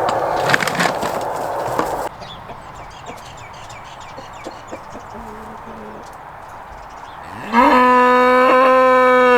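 A farm animal's loud, drawn-out call of nearly two seconds near the end, gliding up in pitch at the start, held steady, then dropping off. It follows a few seconds of quieter outdoor background after an abrupt change about two seconds in.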